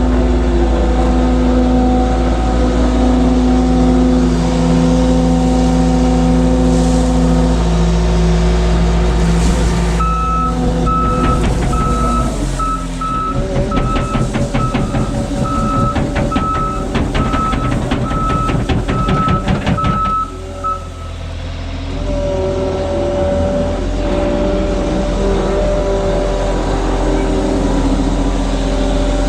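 Diesel work machine running close by, its engine pitch shifting as it works. About ten seconds in it backs up with its reversing alarm beeping steadily for about ten seconds over a rapid clatter, and the alarm starts again near the end.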